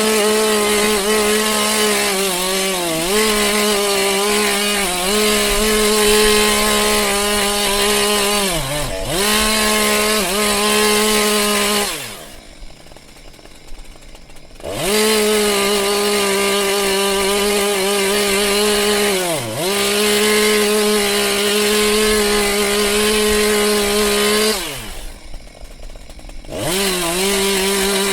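Chainsaw engine running at high revs while cutting, its pitch dipping briefly several times as the chain bites into the wood. Twice it drops back to idle for about two seconds, then revs up again.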